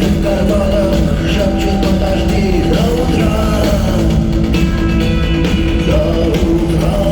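Rock band playing live, loud and steady, with a melody line gliding over the band.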